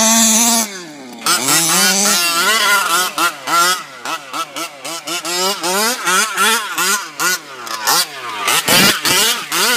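Two-stroke engine of a 1/5-scale gas RC buggy revving up and down repeatedly as the throttle is worked, its pitch rising and falling about twice a second, with one sharp drop near the end.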